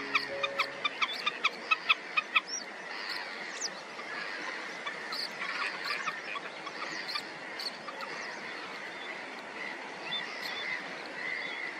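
A bird calling a quick run of about a dozen sharp, evenly spaced notes, some five a second, over the first two and a half seconds; after that, faint scattered calls of other birds over a steady outdoor hiss.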